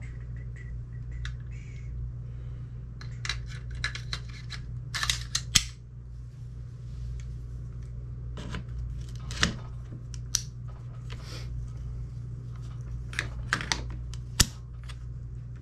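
Scattered metallic clicks, taps and clinks of AR-15 rifle parts being handled and fitted during assembly, coming in small clusters over a steady low hum.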